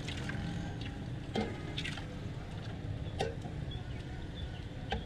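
Lassi being poured from a jug into a steel tumbler and back into a large steel pot, with a few sharp clinks of the vessels, over a steady low hum of background noise.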